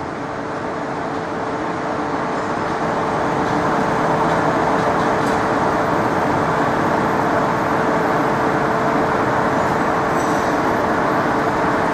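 A steady mechanical rumble and hiss with a constant hum in it, growing louder over the first few seconds and then holding steady.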